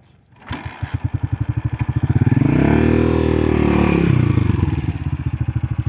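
Motorcycle engine revving: it picks up about half a second in, climbs to a peak over the middle seconds, then drops back toward a lower, pulsing run. It is the kind of revving a rider does working a bike out of mud.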